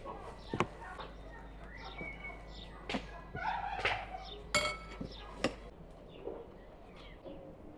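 Scattered clicks and knocks of a metal spoon and a wooden rolling pin against wooden boards, the sharpest a clink about four and a half seconds in, with birds chirping in the background.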